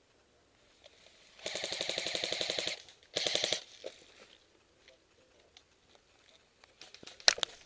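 Airsoft gun firing on full auto: a rapid burst of about a second and a quarter, then a short second burst. A sharp knock near the end.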